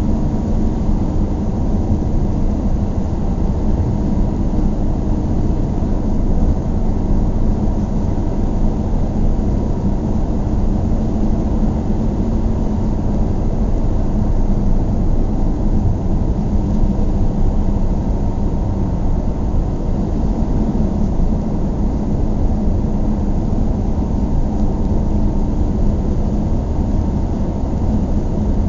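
A car driving steadily, with a continuous low rumble of engine and road noise that holds level throughout.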